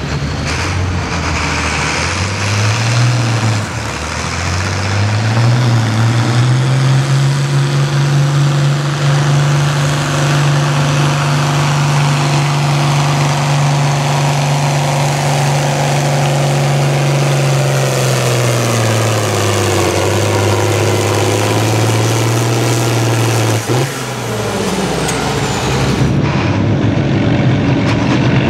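International Harvester farm tractor engine under heavy load pulling a weight-transfer sled. It revs up over the first few seconds and holds a steady high pitch. Then its speed sags and settles lower as the load builds, and it drops away near the end.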